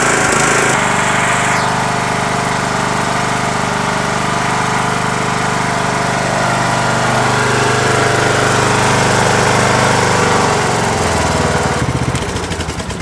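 Riding mower's Briggs & Stratton single-cylinder engine running steadily after starting, now that a bad battery-positive connection has been fixed. About a second from the end it is switched off and runs down.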